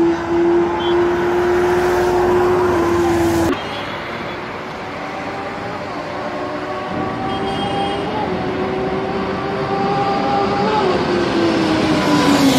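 Sport motorcycle engines at high revs. A strong, steady engine note cuts off abruptly about three and a half seconds in. Then another superbike's engine rises in pitch as it comes closer, and its note falls near the end.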